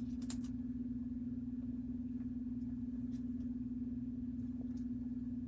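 A steady low electrical hum holding one pitch, with a few faint clicks from trading cards being handled.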